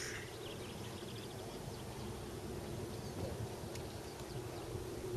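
Quiet outdoor ambience: a low steady hum with faint bird chirps, and a short click right at the start.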